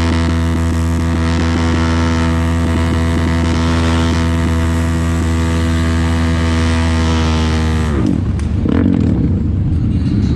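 A motorcycle engine drones at a steady cruising speed. About eight seconds in, the throttle closes and the note drops away, leaving a rough, uneven low rumble as the bikes slow down.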